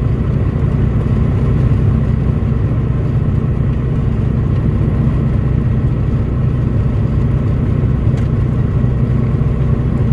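P96 light aircraft's piston engine running steadily at an even pitch.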